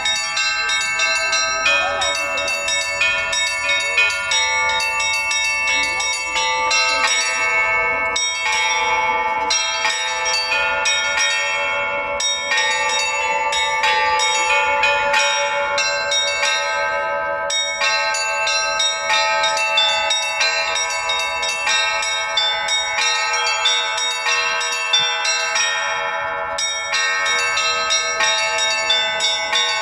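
Russian Orthodox church bells rung by hand in a trezvon in the Novodevichy Monastery tradition: a continuous, rhythmic peal of many bells struck in quick, repeated strokes, their ringing overlapping without a pause.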